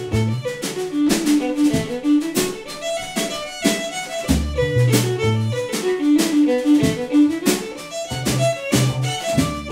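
Live instrumental folk music: a fiddle playing an up-tempo tune over a deep plucked gimbri bass line and a steady drum-kit beat.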